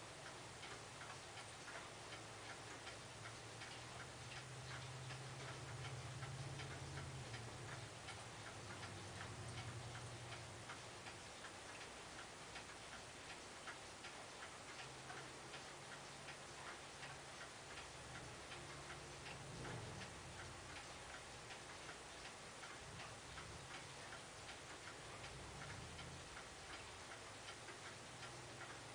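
Faint mechanical clock ticking, several ticks a second and steady, with a low hum at times.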